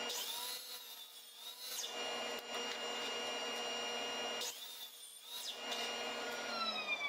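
DeWalt sliding compound miter saw running at full speed as its blade cuts through a wooden 2x4 block. Near the end the trigger is let go and the motor's whine falls steadily as the blade spins down.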